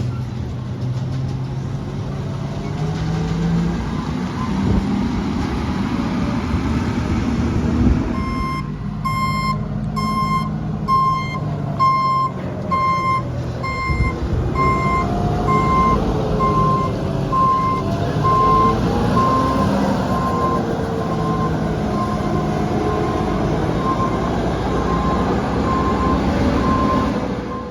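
CNG Mack LR garbage truck with a McNeilus split rear loader body running as it backs down a street, its engine rising and falling in pitch. From about eight seconds in its reversing alarm beeps steadily, about one and a half beeps a second.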